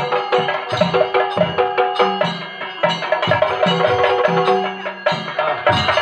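Yakshagana entry music: chende drums beaten in a fast, dense rhythm with deeper drum thuds, while an olaga (reed pipe) holds notes above them, breaking off briefly twice.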